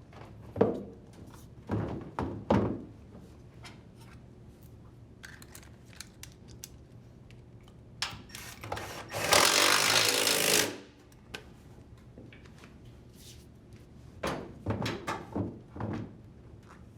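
Metal weights set down on a washer tub with a few heavy knocks, then an impact driver running in one burst of about a second and a half, driving a tub bolt home. A cluster of knocks and clicks from handling parts follows near the end.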